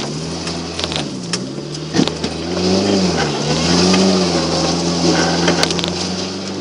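Mk2 Volkswagen Golf 1.3's four-cylinder petrol engine running under load, its revs dipping and rising several times as the car is driven over rough ground. A few sharp knocks come through, one about two seconds in and another near the end.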